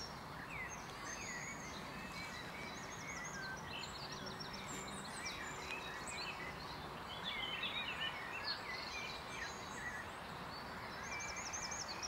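Small songbirds calling and singing, with quick runs of repeated high notes coming several times, over a steady background hiss.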